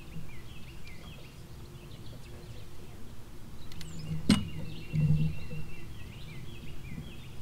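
Birds chirping over and over in short falling notes, with one sharp click a little past the middle.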